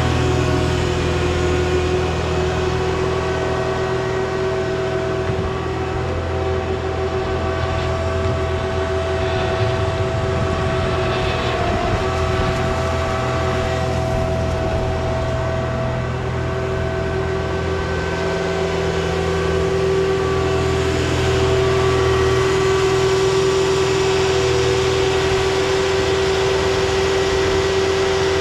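Caterpillar 259D skid steer's diesel engine running steadily, with a constant whine over the engine note.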